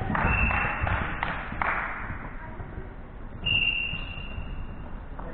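Korfball play on an indoor court: a few knocks and thuds from players and ball on the floor in the first two seconds, then a short, high, steady tone about three and a half seconds in.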